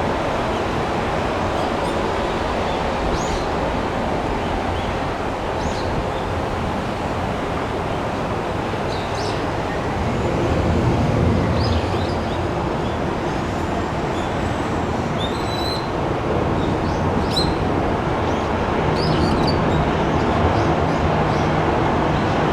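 Steady rumble of a Boeing 787-9's jet engines across the airfield, growing a little louder about halfway through and again near the end. Small birds chirp now and then over it.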